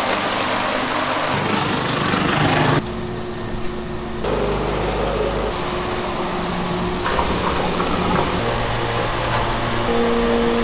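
Food-factory machinery running: a bowl cutter churning fish paste and fish-paste forming machines, a steady mechanical drone with several held hum tones. The sound changes abruptly every second or two as it switches from one machine to another.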